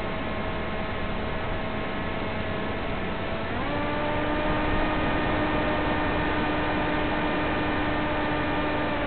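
Electric motor and propeller of an FPV plane running at a steady pitch over steady hiss; the tone steps up in pitch about three and a half seconds in and holds there.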